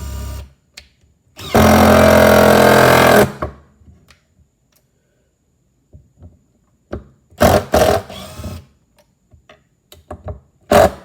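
Makita XDT15 cordless brushless impact driver running in one loud burst of about two seconds, its hammer mechanism rattling, followed by a few shorter bursts later on.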